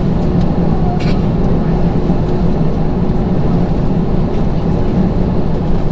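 Airbus A321 jet engines running with a steady, loud drone, heard from inside the passenger cabin.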